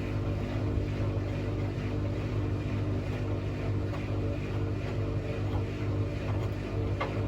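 Logik L712WM20 washing machine's drum motor running at a steady tumbling speed as it tries to balance the load before the final spin, a steady hum with no rise in pitch: it is not yet spinning up.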